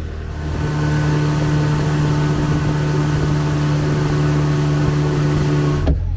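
Boat engine picking up speed about half a second in, then running steadily at speed over a rushing hiss of wind and water. It cuts off abruptly near the end.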